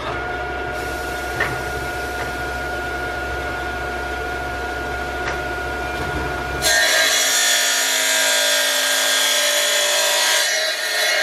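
Electric tile saw running with a steady whine, then biting into a tile about seven seconds in with a louder, harsh grinding hiss that eases off near the end.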